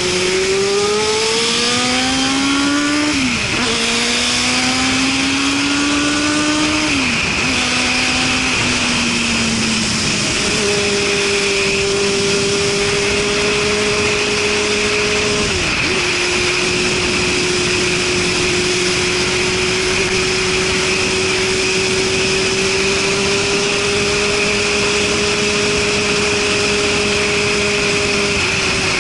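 Suzuki Katana's inline-four engine, breathing through a Super Combat aftermarket exhaust, accelerating. The revs climb and drop sharply twice as it shifts up, then settle into a steady cruise, with one more brief dip about halfway through.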